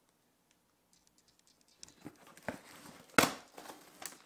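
A knife slicing through packing tape and cardboard on a box, with crinkling, scratching and tearing noises and one sharp loud rip about three seconds in.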